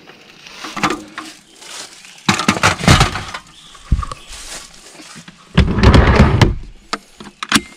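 Drawers and a pull-out pine shelf of a wooden tool-chest kitchen box being slid shut. There are two long scraping rushes, each about a second, with knocks, then sharp clicks near the end.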